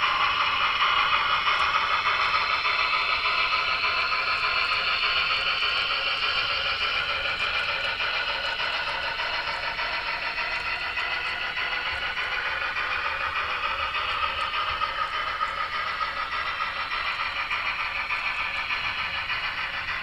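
Sound decoder of an N scale BLI USRA steam locomotive model (Paragon 3 DCC) playing its steam running sounds through the model's small onboard speaker while the train runs, fading slowly as it moves away.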